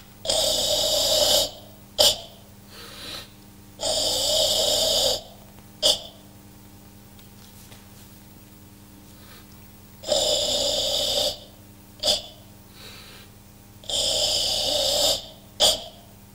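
Kyokushin Sanchin kata breathing (ibuki): four long, loud, hissing forced exhalations, each followed by a short sharp breath.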